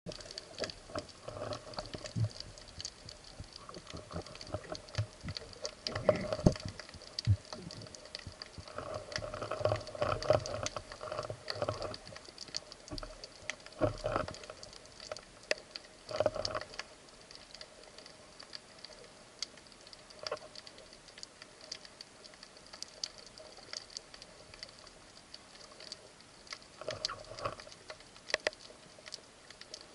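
Underwater sound through a speargun-mounted camera: dense, irregular crackling clicks throughout, with bursts of louder rustling and knocking every few seconds, strongest in the first half and again near the end.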